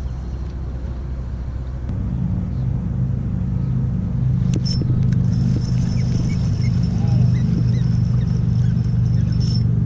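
Low, steady engine rumble that grows louder about two seconds in, with a faint high whine through the second half.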